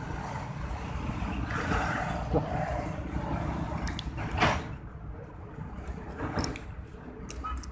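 Steady low rumble with a few short rustles and knocks, the clearest about four and a half seconds in, as a freshly landed snakehead twists on the fishing line and drops into the grass.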